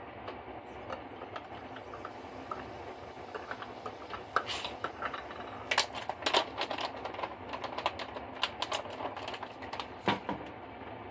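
Metal teaspoon stirring crystals into liquid in a small glass jar, clinking and scraping against the glass in quick, irregular taps that start a few seconds in and go on for several seconds.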